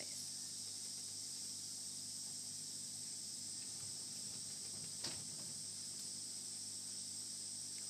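A steady high-pitched hiss over a faint low hum, broken by one soft click about five seconds in.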